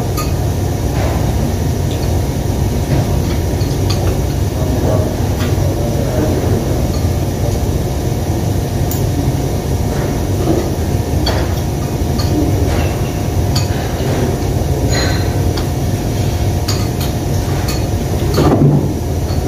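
A steady low rumble of room noise with scattered light clinks of spoons against bowls and dishes as people eat.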